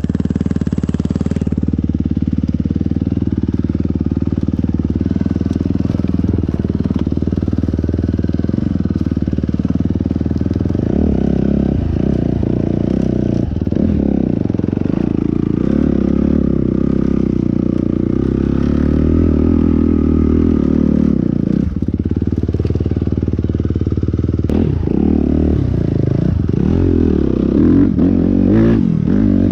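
Motorcycle engine running loud and close throughout, its note rising and falling with the throttle from about ten seconds in.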